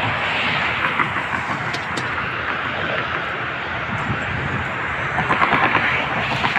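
Steady roar of road traffic noise, swelling again about five seconds in.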